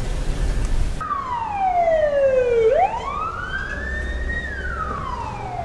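A low rumble for about a second, then a fire engine's siren wailing in slow sweeps: a long fall in pitch, a rise, and another fall.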